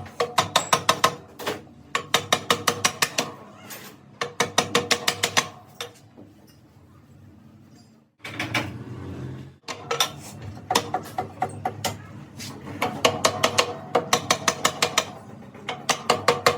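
Ratchet wrench clicking in repeated strokes: runs of quick, even clicks, about eight a second, with pauses between strokes and a longer break about halfway through.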